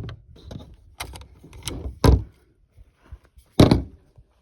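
A string of sharp clacks and knocks from things being handled, with two louder knocks, one about two seconds in and one about three and a half seconds in.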